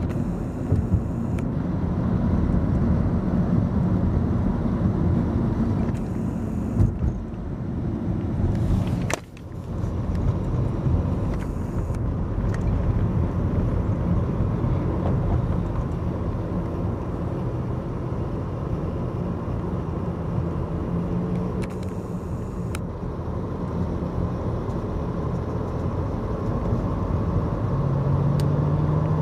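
Steady road rumble and engine noise of a moving car, heard from inside the car, with a brief dip about nine seconds in.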